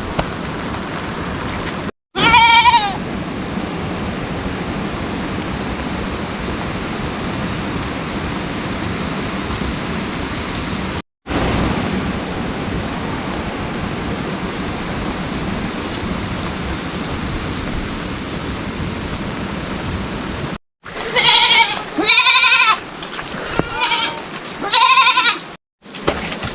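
Steady rain hiss, broken by a few short drops to silence. Livestock bleat once, about two seconds in, then give four or five quavering bleats near the end.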